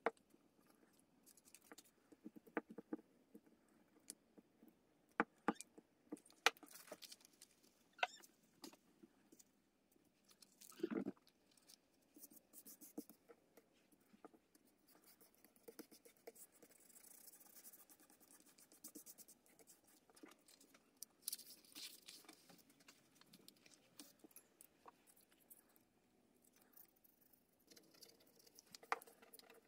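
Faint paper handling: hands rubbing and pressing glued paper flat on a journal page, with short rustles, scratchy rubbing and scattered small taps and clicks at irregular times.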